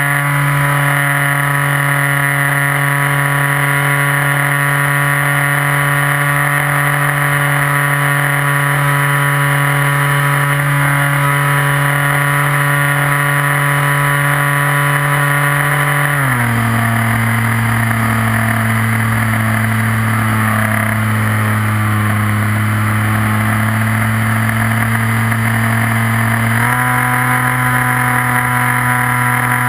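RC model plane's motor and propeller, heard from a camera on board, running as a steady, loud whine. The pitch drops about halfway through as the throttle is eased back, holds lower for about ten seconds, then rises again as power is added.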